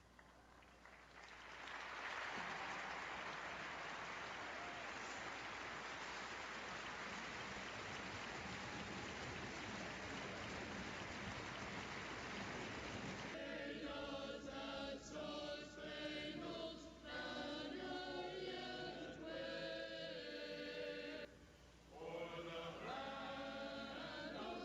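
Arena crowd noise swelling up after a quiet first second, giving way about thirteen seconds in to singing with clear sustained pitches that carries on to the end.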